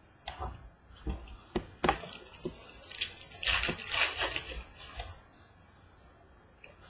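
Trading cards and pack wrappers being handled: short snaps and clicks as cards are slid and flipped, with a stretch of paper-and-foil rustling from about three to four and a half seconds in.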